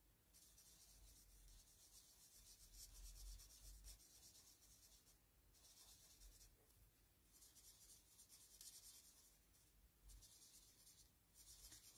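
Faint scratching of a Stampin' Blends alcohol marker's tip rubbing over white card as small flowers are coloured in, in long stretches of strokes with a pause of about two seconds in the middle.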